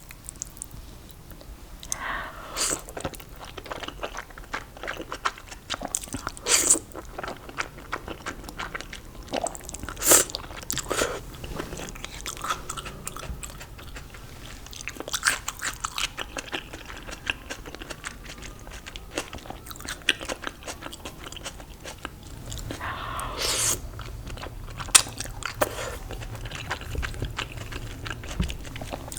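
Close-up biting and chewing of crunchy fried food, with sharp crunches every few seconds between steady chewing.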